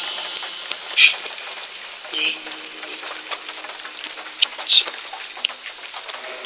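Echovox spirit-box app playing through a small clip-on speaker: a steady noise hiss with short, garbled voice-like fragments popping out about a second in, around two seconds and near five seconds.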